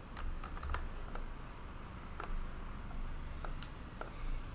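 Computer mouse clicking: about eight light, separate clicks at irregular intervals, over a faint low hum.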